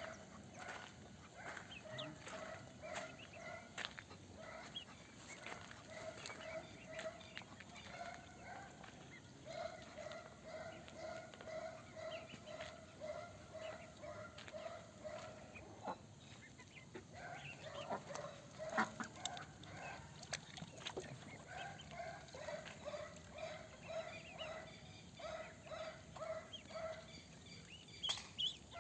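Ducks calling in long runs of short, evenly repeated quacks, about three a second, with a few sharp knocks among them.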